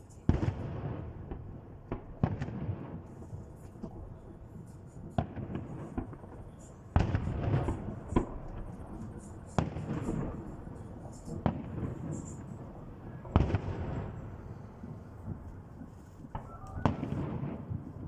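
Fireworks salute: aerial shells bursting one after another every one to three seconds, each a sharp boom with a low rumbling tail, some followed by crackling.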